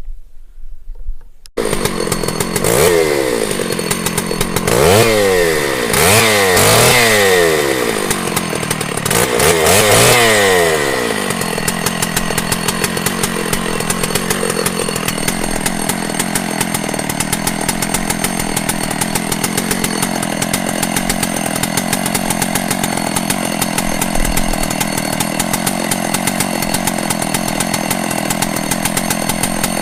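Gas chainsaw starting up and revving up and down about five times, then running steadily at one speed.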